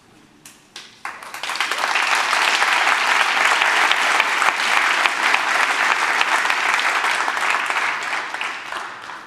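Audience applauding: a few scattered claps, then applause that swells about a second in, holds steady, and dies away near the end.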